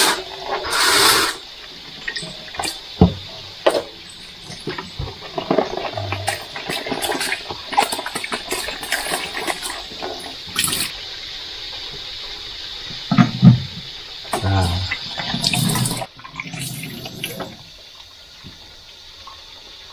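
Tap water running into a stainless-steel sink while pots and dishes are washed under it, with frequent clinks and knocks of cookware against the sink, loudest a little after halfway. The water runs softer over the last few seconds.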